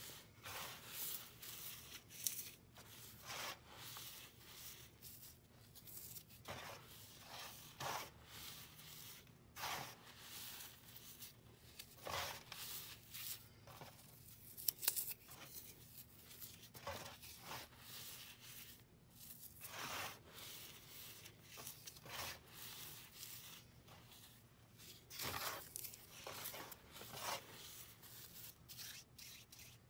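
Hands crushing and crumbling powder-coated dry floral foam (Oasis) in a bowl of gym chalk and baby powder: dry, gritty crunches and crumbles in irregular bursts about every one to two seconds.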